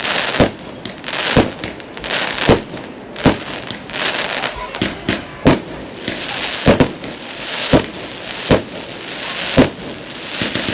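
Bonfire Night fireworks going off: a string of sharp bangs about once a second, with crackling and hissing between them.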